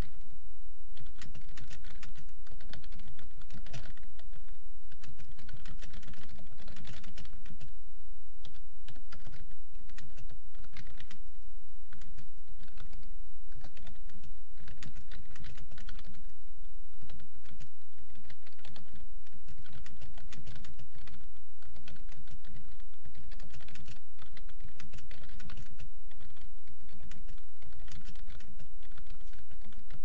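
Fast, continuous typing on a computer keyboard, at around 65 words a minute, the keystrokes clicking in quick irregular runs over a steady low background hum.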